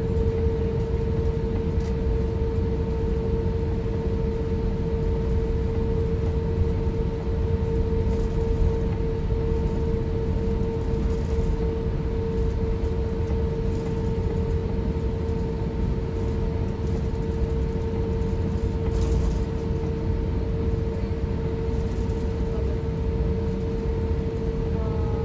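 Cabin noise inside an Airbus A350-1000 airliner: a steady low rumble with one constant whine above it that neither rises nor falls.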